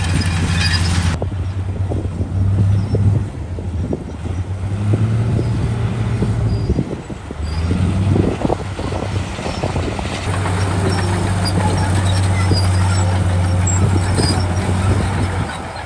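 Heavy diesel construction machinery, a bulldozer or dump truck, with its engine running loudly. Engine speed shifts up and down in the first half, dips briefly about seven seconds in, then holds steady.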